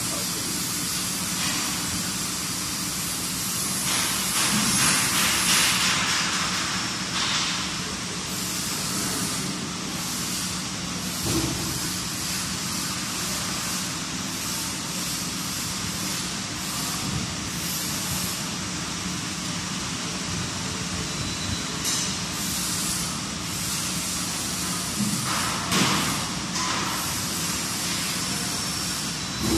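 Steady machinery noise: a low hum under a constant hiss, swelling into louder rushes of hiss a few times.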